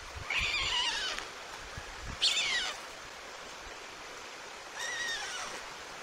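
White stork chicks calling three times, thin cries that fall in pitch, the first about a second long, over a steady background hiss.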